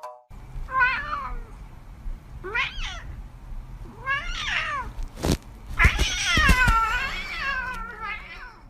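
A domestic cat meowing repeatedly: three short calls about a second and a half apart, then a longer, louder meow that falls in pitch, and one more short call near the end. There is a single sharp knock just before the long meow.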